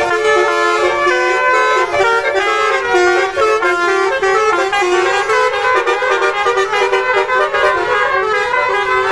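Basuri telolet multi-tone car horn playing a fast tune, several horn notes sounding together and changing pitch in quick steps.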